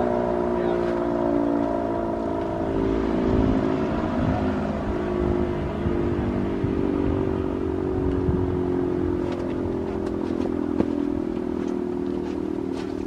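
Sentry 10V outdoor warning siren winding down: several tones sounding together and sliding slowly and steadily lower in pitch.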